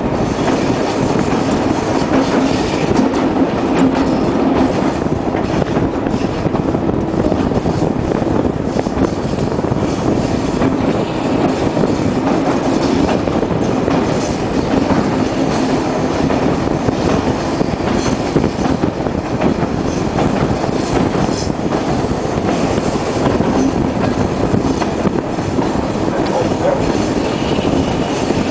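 Passenger train running along the track, heard from a carriage window: a loud, steady rumble of wheels on rails with no letup.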